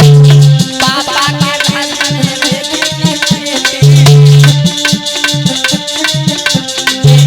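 Instrumental Indian folk music with no singing: tabla-like hand drums and a shaker rattle keep a fast, even beat under a wavering melody line. A deep held bass note sounds at the start and again about four seconds in.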